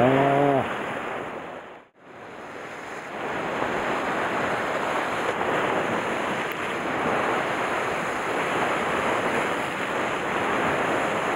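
Sea waves breaking and washing over shore rocks: a steady rushing surf, briefly dropping out to silence about two seconds in.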